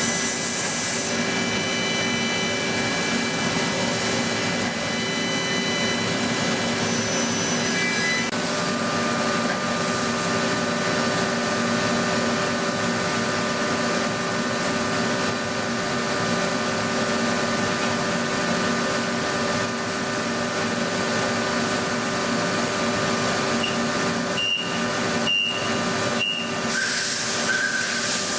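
Multi-axis CNC turning machine running through a cut: a steady mechanical hum and hiss with several high, steady whining tones. About eight seconds in, the set of whining tones changes to new pitches. Near the end there are a few short breaks in the sound.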